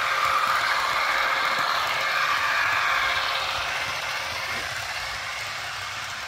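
O-gauge model diesel locomotive pulling a train of well cars on three-rail track, with a steady running and rolling noise that fades gradually from about three seconds in as the train moves away around the curve.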